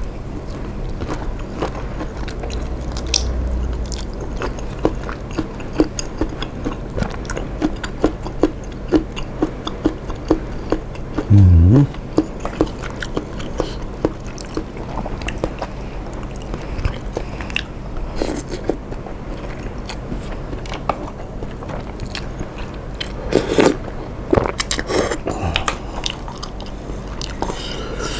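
Close-miked eating of tom yum seafood instant noodles: biting, chewing and small wet mouth clicks throughout, with one brief louder low vocal sound about eleven and a half seconds in.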